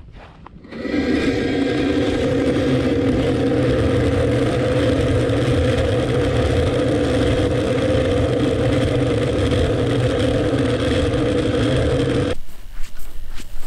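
Power ice auger drilling through lake ice: a steady motor that starts about a second in and cuts off suddenly near the end.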